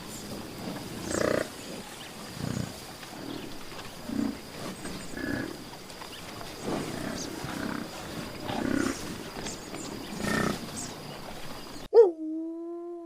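Big cat giving a series of short, low grunting roars, about one every second to second and a half. Near the end the sound cuts abruptly to a steady, drawn-out howl.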